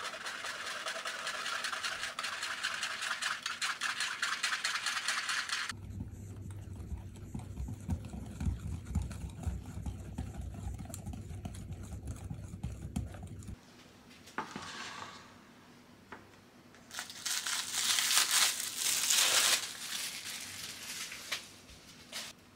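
Hot strawberry milk trickling steadily through a mesh strainer onto chopped white chocolate in a glass bowl, then a wire whisk stirring the mixture in the glass bowl for several seconds. Near the end comes a louder noisy sound lasting a couple of seconds.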